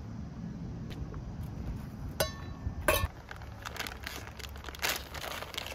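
A stainless steel pot clinks down onto a metal camping stove stand, a ringing clink about two seconds in followed by a louder knock. Then a plastic noodle packet crinkles and rustles as it is opened.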